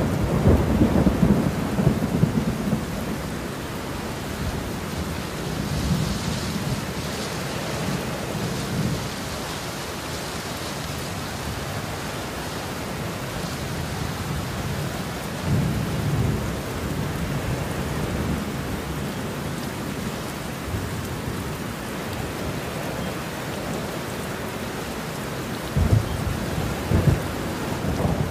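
Heavy rain falling steadily with rolls of thunder: a loud rumble at the start, softer rumbles about a quarter and halfway through, and two sharper claps near the end.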